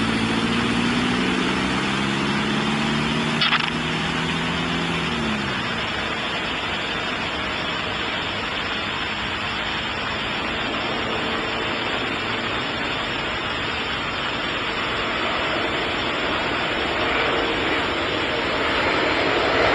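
Boeing 747-400 freighter on final approach, its jet engines a steady distant rushing rumble that grows slightly louder near the end as it comes in. In the first few seconds a passing vehicle's engine hum drops in pitch about five seconds in.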